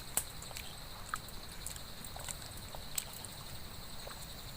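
Steady drone of insects, a high even hum, with scattered sharp clicks and taps on top, the clearest near the start and about three seconds in.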